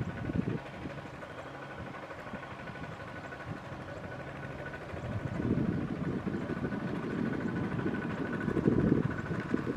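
Kubota RT120 power tiller's single-cylinder diesel engine running steadily while ploughing, growing louder about halfway through.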